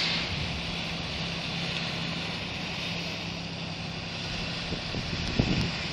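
Steady low drone of distant boat engines on the river, under wind rumbling on the microphone, with a stronger gust about five and a half seconds in.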